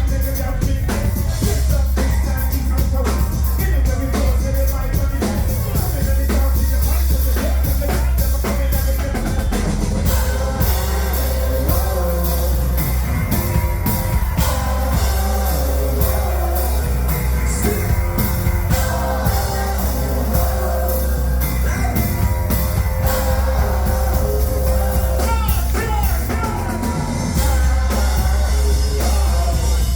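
Live band playing a loud rock and dub track with singing, a drum kit, guitar and heavy bass, heard through an amateur recording of a club PA. The bass drops out briefly about ten seconds in and again near the end.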